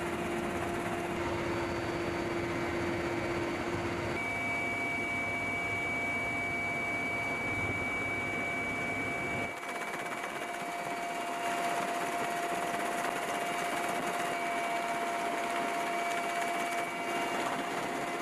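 Steady aircraft engine noise: a constant rushing drone with high whining tones held throughout. The deep rumble drops away about halfway through, leaving a thinner whine.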